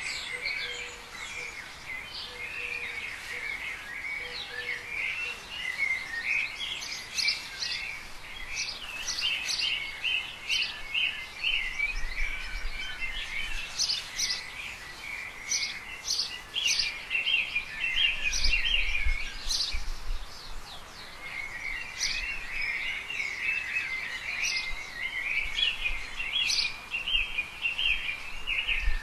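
Garden birdsong: many short chirps and warbling phrases overlapping throughout, with a faint low rumble now and then.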